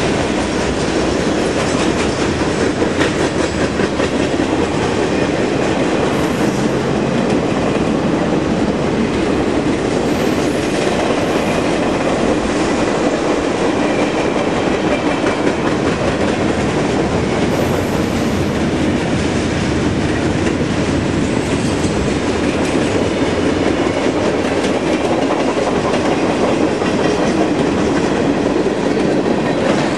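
Freight train of boxcars and flatcars rolling past at speed: a steady rumble of wheels on rail with a clickety-clack over the rail joints.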